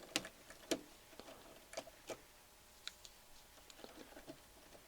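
Light, irregular clicks and snips, about eight over a few seconds and the sharpest about a second in, as a cable tie around the turntable's motor wiring is cut and the wiring handled.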